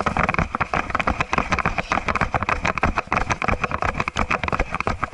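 Rapid, irregular clicking and rattling: a Sony HDR-AS30V action camera knocking about inside its case on a chest mount, picked up by its own microphone as the wearer moves.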